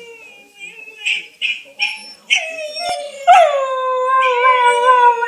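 Whippet howling: a few short yips, then about three seconds in a long, drawn-out howl that wavers slightly in pitch.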